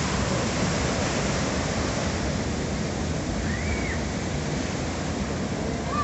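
Ocean surf breaking and churning over a rocky reef shore: a steady, unbroken rushing wash of waves and foam.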